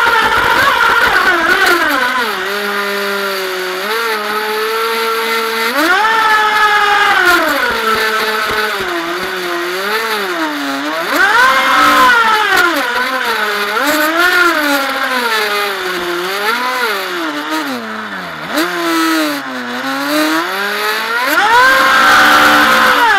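Feilun FT011 RC racing boat's brushless electric motor whining under throttle, its pitch rising and falling again and again as the throttle is opened and eased, over a hiss of water and wind. The pitch is lowest a few seconds in and again near 18 seconds, and highest at around 6, 12 and 22 seconds.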